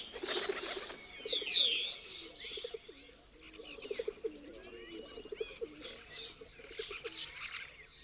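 Pigeons cooing in low rolling notes, with small birds chirping over them, the chirps mostly in the first two seconds.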